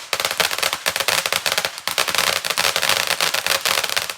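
Consumer fireworks crackling: a dense, rapid run of sharp pops and cracks that cuts off abruptly near the end.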